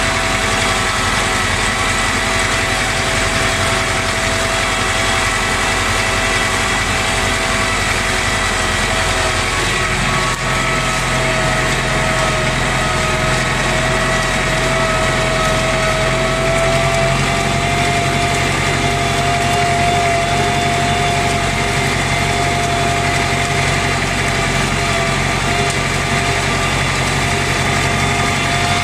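IMT 560 tractor's diesel engine running steadily under load while pulling a disc harrow, heard from inside the cab. About ten seconds in, the low engine note shifts slightly and then holds steady.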